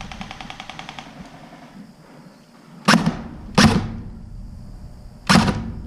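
Airsoft guns firing: a quick rattling burst of rapid shots for about a second, then three loud sharp shots about three, three and a half and five seconds in.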